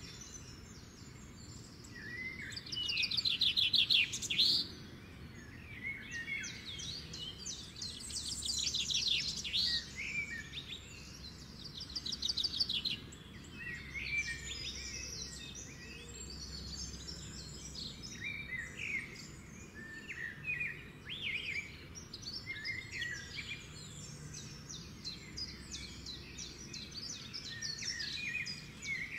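Several birds chirping and singing: fast trills in the first half, then scattered short chirps.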